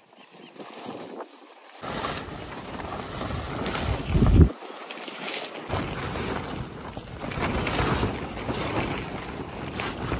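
Wind gusting hard across the microphone, with a plastic tarpaulin rustling and flapping as it is pulled over a wooden pole frame. The loudest moment is a heavy gust rumbling on the microphone about four seconds in.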